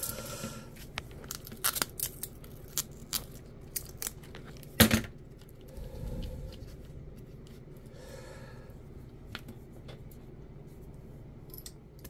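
Strong black adhesive tape being unrolled and pressed around a LiPo battery pack, with scattered clicks and crackles of handling. The loudest is a sharp click about five seconds in.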